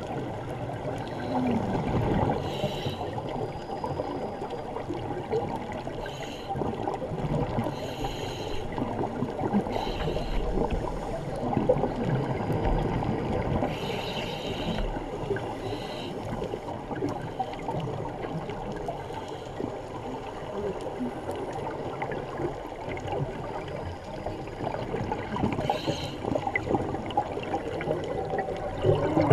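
Scuba divers' exhaled regulator bubbles gurgling underwater, a continuous bubbling rumble with louder bubble bursts every few seconds.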